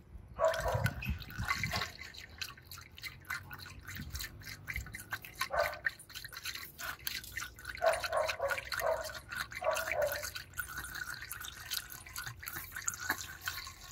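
Engine coolant poured from a bottle into a plastic funnel: a steady splashing stream with irregular gurgling as the funnel fills the cooling system.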